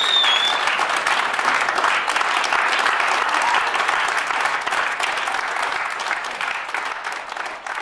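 Audience applauding a finished song, dense clapping that slowly dies away, with a short whistle from the crowd at the very start.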